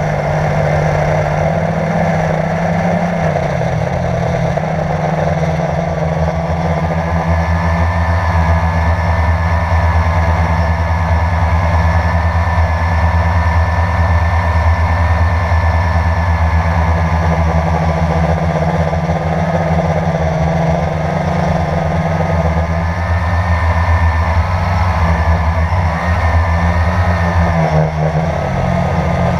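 Quadcopter drone's electric motors and propellers buzzing steadily in flight, heard close up from the drone itself, with the pitch wavering slightly as it manoeuvres.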